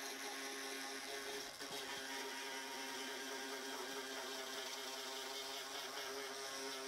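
Small electric die grinder with a sanding drum running steadily as it sands the varnish off a plastic car bumper part to prepare it for welding: an even motor whine with a brief dip about a second and a half in.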